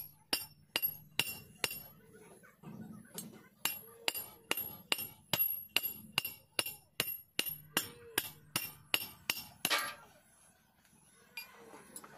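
Steel rod tapping on a flat steel bar: sharp ringing metal clinks, about two a second. Near the end the tapping stops with a louder clatter, followed by faint rustling.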